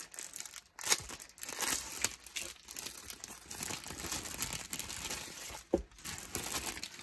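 Clear plastic packaging sleeve crinkling and crackling in irregular bursts as it is opened and a cloth bag is pulled out of it, with a sharp crackle about a second in.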